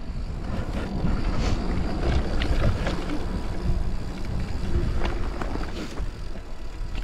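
Wind rumbling on the microphone of a Focus SAM2 enduro mountain bike descending a dirt trail, with tyre noise and a few sharp clicks and knocks from the bike rattling over rough ground.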